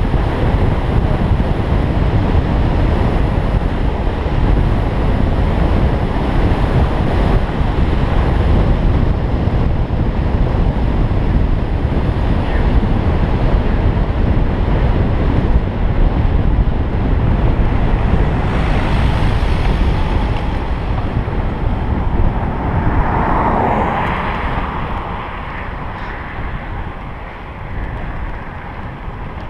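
Heavy wind rush buffeting the microphone of a camera on a moving road bike, easing off in the last few seconds.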